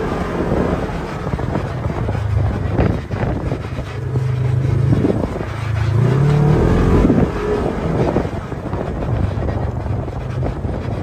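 Side-by-side UTV engine running while driving a dirt trail, rising in pitch as it speeds up about four seconds in and again around six to seven seconds, then easing off.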